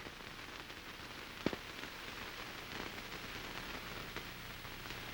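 Steady hiss and fine crackle of an old optical film soundtrack, with a single sharp click about a second and a half in.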